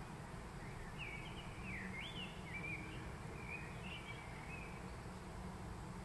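A small songbird singing faintly, a warbling phrase of quick rising and falling notes lasting a few seconds, over a steady low background rumble.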